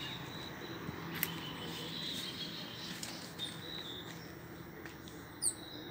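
Outdoor ambience: a steady low background hum with faint, high-pitched chirps that come and go, a sharp click about a second in, and a short, louder high chirp near the end.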